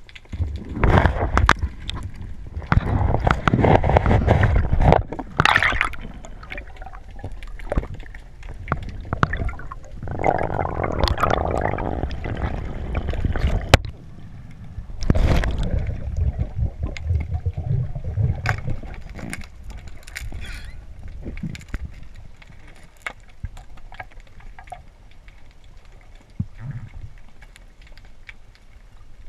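Water sloshing and gurgling around an underwater camera as a freediver swims, in irregular loud surges with crackling bubble clicks, settling to a faint hiss over the last several seconds.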